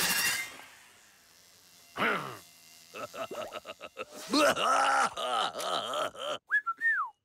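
Cartoon soundtrack of wordless character voices and sound effects. A short falling swoosh comes about two seconds in, then a quick run of clicks. A cartoon character's groaning, wavering vocalising follows, and two short whistle glides come near the end.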